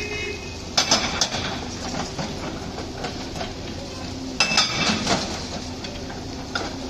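Hydraulic excavators working demolition rubble: engines running steadily, with two bursts of sharp metallic clanking and ringing, about a second in and again just past four seconds.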